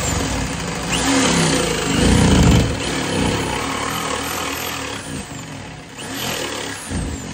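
Electric jigsaw running as it cuts through the wall for the stovepipe hole, loudest about two seconds in and stopping near the end.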